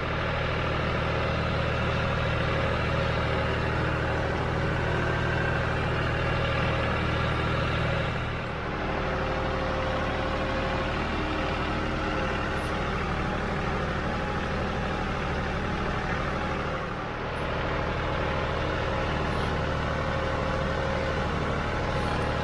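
John Deere utility tractor's diesel engine running steadily as the tractor drives across a field, dipping briefly twice.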